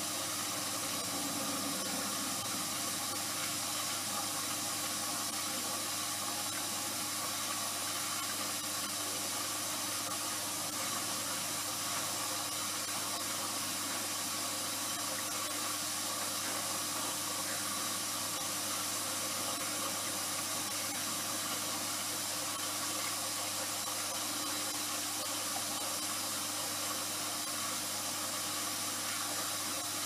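Zanussi Electrolux 1200 6kg front-loading washing machine running on test, giving a steady, unchanging hiss with a faint low hum underneath.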